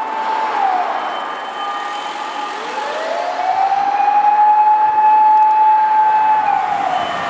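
Fire rescue truck's motor siren wailing. It winds down about half a second in, then winds back up from about two and a half seconds, holds a steady pitch, and winds down again near the end.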